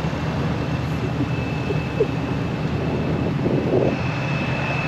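Pickup trucks rolling slowly past in a line of traffic, their engines running steadily at low speed.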